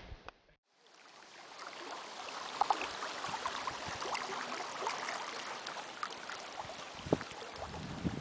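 Small waves lapping and trickling over a pebbly lakeshore: a steady, even wash with many small ticks of water on stones, starting after a moment of silence about a second in.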